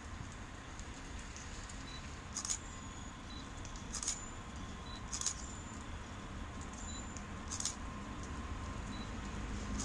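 ET22 electric freight locomotive pulling a train of wagons slowly away from a standstill, a low rumble growing louder as it nears, over a steady hum. Several short, high squeaks sound at intervals of a second or two.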